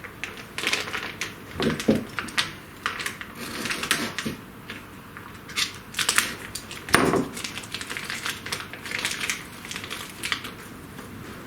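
Hands undoing the packaging of a CNC ball-screw double bearing block: irregular crinkling and clicking of wrapping, with a heavier knock about seven seconds in.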